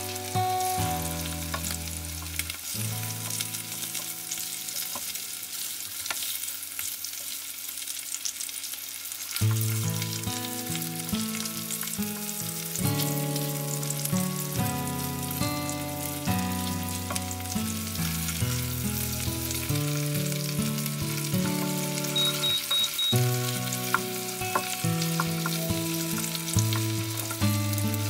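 Masala-coated red snapper sizzling steadily as it shallow-fries in oil in a pan. Background music plays over it, and its bass line comes back in about a third of the way through.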